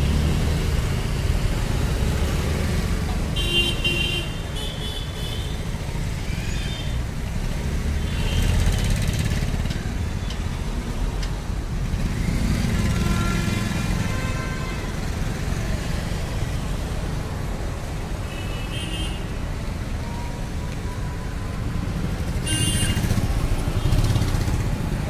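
Busy Indian city road traffic: a steady rumble of passing cars and motorcycles, with vehicle horns honking several times.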